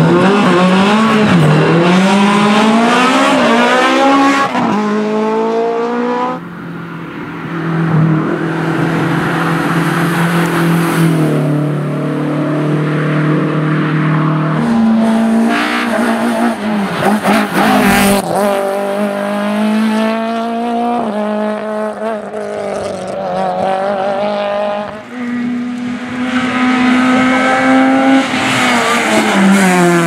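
Rally-prepared hatchback race cars accelerating hard, engines revving up through the gears with the pitch rising and dropping back at each upshift. It comes as several separate passes cut together, some stretches held at a steady high rev.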